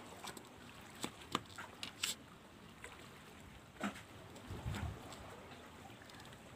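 Scattered small clicks and knocks from a fishing rod, reel and tackle being handled, over a faint steady wash of the sea, with a short low rumble a little past halfway.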